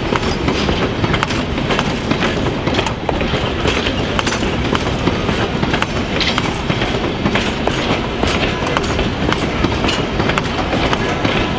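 Passenger coaches rolling past at close range: a steady rumble of the trucks with an irregular run of sharp clicks and clacks from the wheels on the track.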